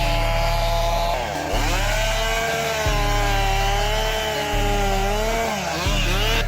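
Stihl MS661 two-stroke chainsaw running at high revs as it cuts through a large gray poplar trunk. Its pitch sags under load about a second and a half in and again near the end.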